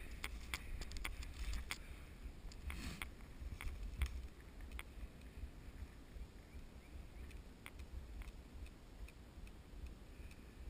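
Faint, irregular clicks and snaps, about a dozen scattered through, over a steady low rumble on the microphone.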